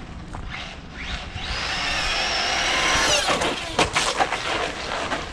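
Maverick Quantum RC truck on a 3S battery accelerating hard: its electric motor and drivetrain whine rises in pitch and grows louder for about two seconds. About three seconds in the whine falls away, followed by a few sharp knocks as the truck slows.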